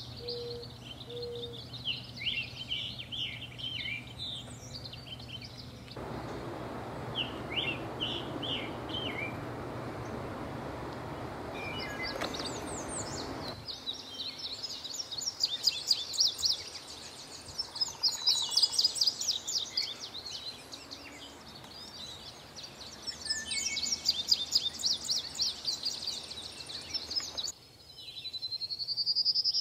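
Songbirds singing in turn: a scarlet tanager's short phrases, then an indigo bunting's high, rapid phrases, then near the end a prairie warbler's song of notes rising in pitch. A steady hiss of background noise runs under the song for several seconds in the first half.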